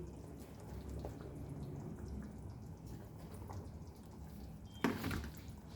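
Faint kitchen sounds as diced onion is tipped into a pan of chicken curry, with one short sharp clatter near the end.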